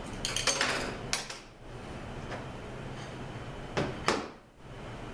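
Steel snap ring being pried out of an automatic transmission clutch drum with a pick: metal scraping and clicking in the first second, then two sharp metallic clicks near the end.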